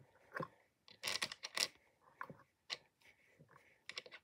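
Green slime in a metal tin being pressed and poked with fingers, making irregular short sticky clicks and crackles, with a denser cluster about a second in.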